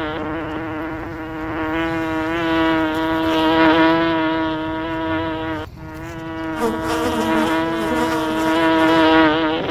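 A bee buzzing close up, a steady droning hum that swells and fades. It breaks off briefly about five and a half seconds in, then resumes.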